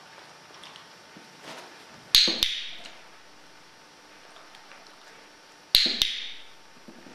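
Handheld dog-training clicker sounded twice, each time a sharp double click with a brief ring: the marker for a correct move, which is followed by a treat.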